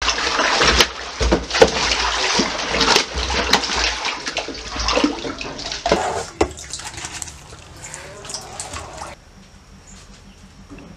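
Water splashing and sloshing in a round concrete container as its walls are scrubbed with a brush, with sharp knocks against the concrete; the splashing dies down about nine seconds in.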